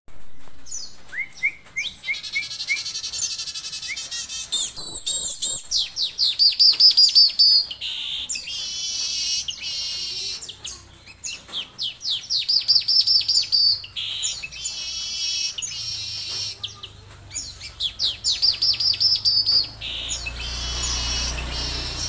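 Manyar (weaver bird) singing: repeated phrases of rapid, high chirps and fast downward-sweeping trills, separated by short pauses.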